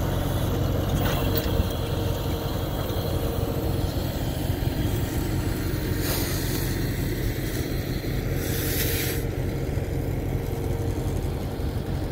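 Tractor engine idling steadily, with a short hiss about eight and a half seconds in.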